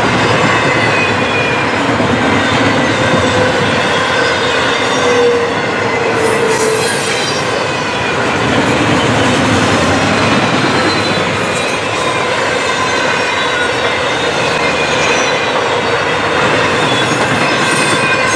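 Intermodal freight train's stack and trailer cars rolling past at speed: a steady, loud rumble and rattle of steel wheels on rail, with thin high whining tones from the wheels over it.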